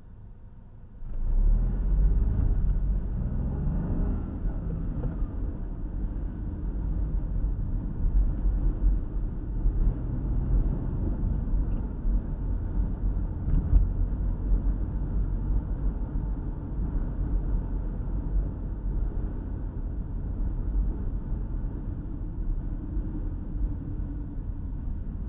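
Car rumbling from inside the cabin as it pulls away from a standstill about a second in, the engine note rising for the first few seconds, then a steady low rumble of engine and tyres on the road while cruising.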